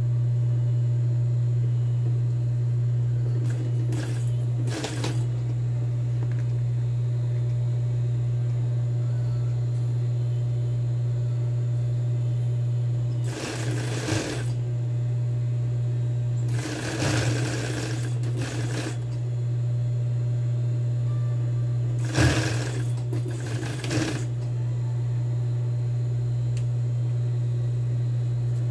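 Industrial sewing machine's motor humming steadily, with several short bursts of stitching through denim: a brief one about four seconds in, two in the middle, and one more a little past twenty-two seconds.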